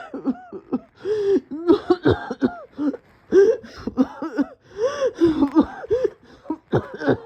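A person in a coughing fit: a rapid run of short, voiced coughs and throat-clearing sounds.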